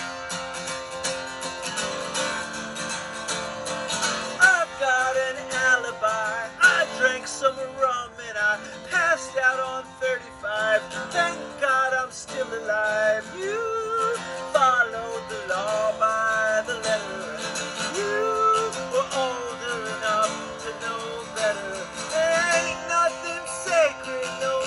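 Acoustic guitar strummed through an instrumental break in a slow song. From about four seconds in, a sliding, wordless melody line plays over it.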